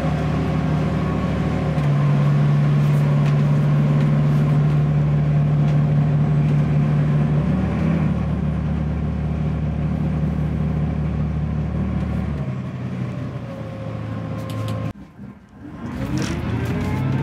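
Volvo Penta D6 inline-six diesel sterndrive engine running steadily under way, heard from inside the wheelhouse. Near the end the sound drops out briefly, then the engine note rises in pitch as the boat accelerates.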